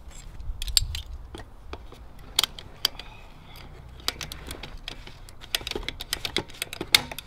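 Ratcheting PVC pipe cutter clicking in quick irregular runs as it is squeezed through a small white PVC pipe, with a few sharper snaps.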